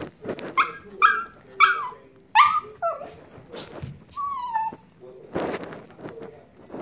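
Small long-haired dog crying in distress as its owner leaves: four short high yelps in quick succession, then a longer falling whine about four seconds in.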